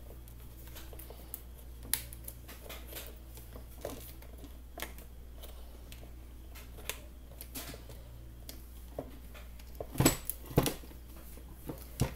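Light scattered clicks and scrapes of a screwdriver and fingers working a carbon-brush holder into the plastic housing of a Bosch GSB 20-2 drill, with a few louder knocks near the end as the drill body is handled.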